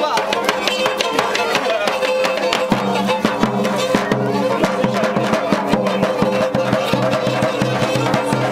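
Live Black Sea folk music for a horon dance: a davul bass drum beaten in a fast, even rhythm under the sustained melody of a kemençe.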